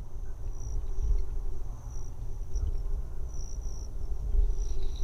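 Insects calling in short, high-pitched trills that come and go, over a steady low rumble.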